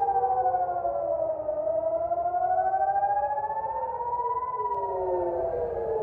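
Several civil-defence air-raid sirens wailing at once, each tone slowly rising and falling out of step with the others: a rocket and missile warning alert.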